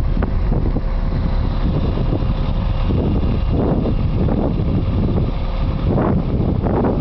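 Nova LFS city bus's diesel engine running as the bus pulls away, with a heavy low rumble of wind on the microphone; the noise swells louder a few seconds in and again near the end.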